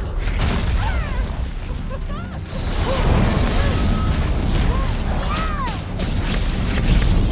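Soundtrack of an animated fight: a dense rumble with many short rising-and-falling pitch glides scattered through it, mixed with background music.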